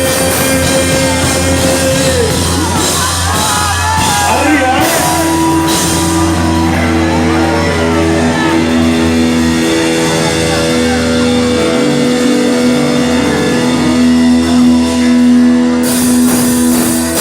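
Live rock band playing: guitars and drums with long held notes, and a voice singing or shouting briefly about four seconds in.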